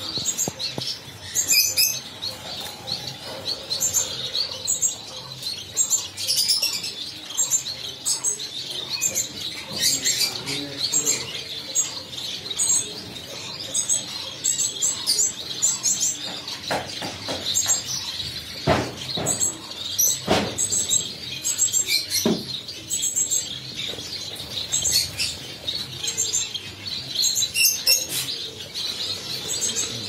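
A flock of society finches, adults and young, chirping and twittering continuously in a flight cage, with many short high calls over a steady chatter. A few brief soft knocks come near the middle.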